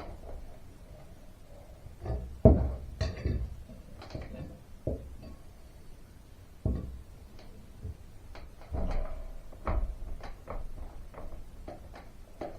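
Irregular knocks, taps and clatter from working at the brass bottom plate of an aluminium storm door by hand, trying to slide it, the loudest knock about two and a half seconds in.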